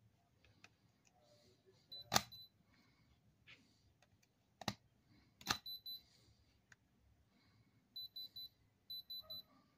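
Handheld electronic gem tester giving short high beeps as its probe tip is pressed against white stones, singly at first and then in quick runs of three near the end, with a few sharp clicks of the tip against the rock.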